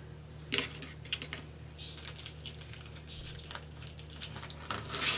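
Poly deco mesh rustling and crinkling as it is rolled into curls by hand, with a few light scattered clicks and taps from the plastic mesh and a chip clip.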